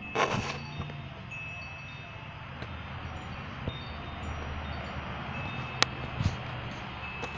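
Battery-powered air pump running steadily as it inflates an air mattress: a low hum with a rush of air. A short burst of noise just after the start and a sharp click near the end. Clear ringing tones come and go over it.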